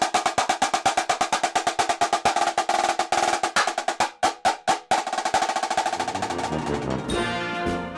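Military snare drum playing a fast, even cadence, with a few spaced accented strokes about four seconds in, then a continuous snare roll as brass music comes in near the end.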